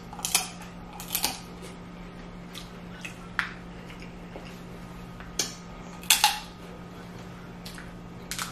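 Snow crab leg shells cracking and snapping as they are broken open while eating: about a dozen sharp, irregular cracks, with a low steady hum underneath.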